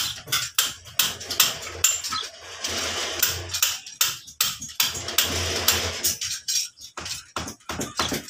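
A hammer pounding repeatedly at an uneven pace, each blow a sharp knock with a metallic clink.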